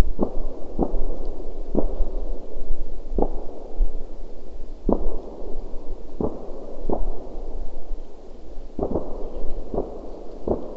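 Distant fireworks going off: about eleven muffled bangs at uneven intervals, some close together near the end, over a low rumble.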